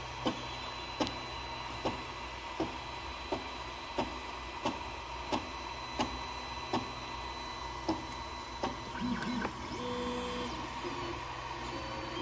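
Bowden-fed FDM 3D printer starting a print: sharp clicks repeating evenly about every 0.7 s over a steady fan hum, then a few short motor whines near the end as the axes move.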